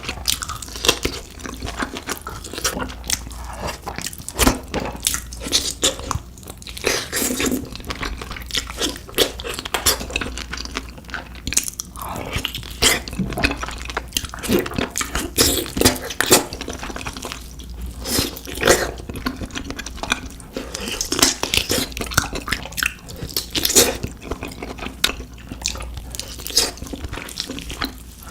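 Close-miked chewing and biting of cooked beef feet, with dense, irregular crunchy and wet mouth sounds.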